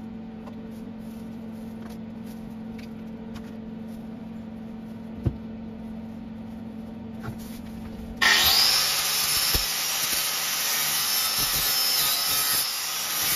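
A steady low hum, then about eight seconds in an electric angle grinder starts up and goes straight onto steel, grinding weld spatter off a freshly tack-welded strip.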